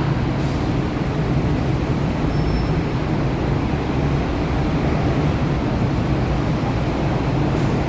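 Bus engine and running noise, a steady, even rumble with most of its weight low down.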